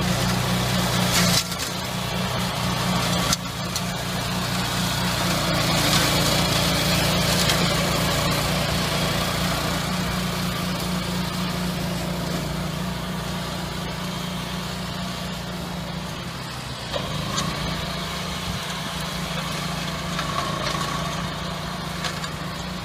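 Engine of gas-powered brush-clearing equipment running steadily, with abrupt changes about one and a half and three seconds in.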